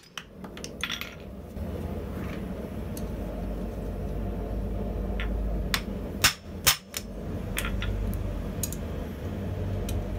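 Two sharp hammer blows on the lever of a rotary hot shear, about half a second apart and a little past the middle, shearing through hot 8mm steel bar, with lighter metal clinks of tongs and stock around them. A steady low hum runs underneath.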